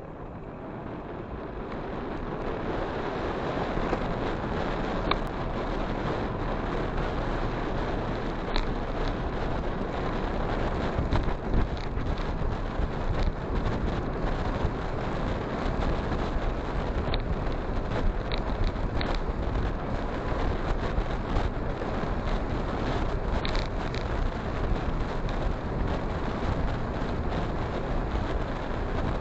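Wind and road noise of a moving motorcycle rushing over the microphone, building over the first few seconds and then holding steady, with a few faint ticks.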